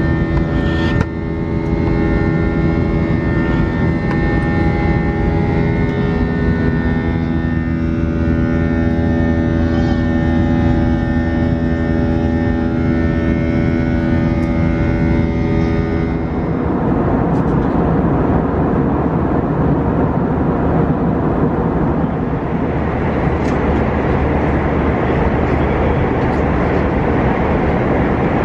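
Airbus A321 cabin noise: a steady engine hum with several held tones, which gives way about halfway through to an even rushing roar.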